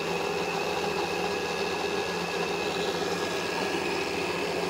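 Electric kitchen machine with a blender jug running steadily, puréeing beetroot: an even motor hum with a steady high whine.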